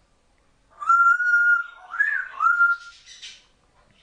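African grey parrot whistling: after a brief silence, a long steady whistled note, then a short rising-and-falling note and another steady note, ending in a brief raspy sound.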